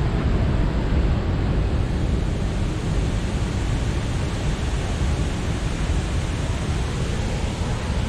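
Susquehanna River floodwater rushing over the Holtwood Dam spillway near peak flow: a steady, heavy rush of falling water.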